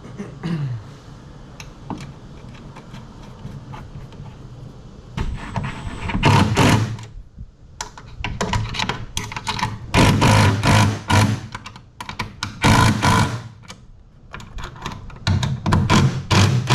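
A power drill running in repeated bursts of about a second each, starting and stopping, while drilling bolt holes through the jon boat's transom and fitting the transom bolts. Light clicks and a short motor spin-down come before the loud bursts.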